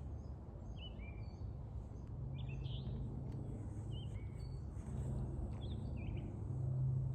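Birds calling with many short chirps, several sliding in pitch, over a steady low rumble.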